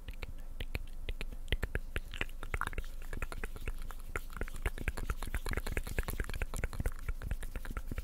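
Wet mouth clicks and smacks close to the microphone, ASMR-style: many sharp, irregular clicks a second, with no words.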